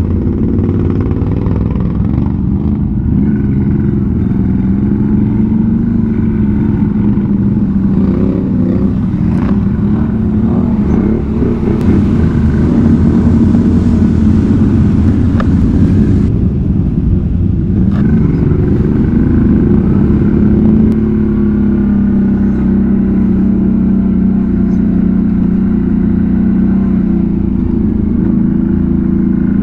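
V-twin ATV engine running hard under load while riding through mud, its pitch rising and falling with the throttle. A few seconds of hiss sound near the middle.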